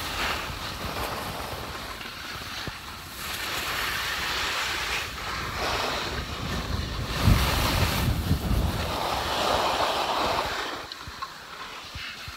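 Wind buffeting the phone's microphone: a rushing hiss that swells and fades, with heavier low rumbling gusts about seven to nine seconds in.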